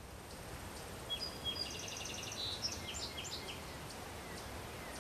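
Outdoor background noise that fades in and stays steady, with songbirds singing quick high chirps and trills from about one to three and a half seconds in.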